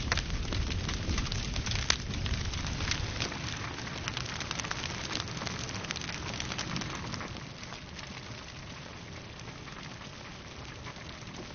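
Grass fire crackling: a dense, steady crackle with many small sharp pops, louder for about the first seven seconds and then quieter.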